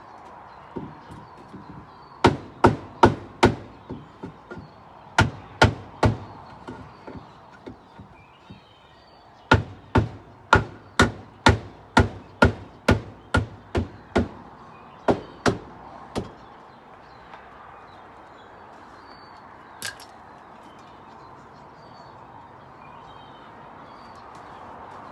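Hammer blows on wood in runs of quick, evenly spaced strikes, about two to three a second. A few strikes come first, then after a pause a longer run of about a dozen, ending with a few scattered blows.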